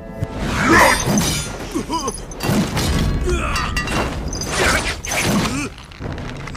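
Action-film fight sound effects: repeated crashing, smashing impacts and rushing whooshes, mixed with short cries. They start abruptly.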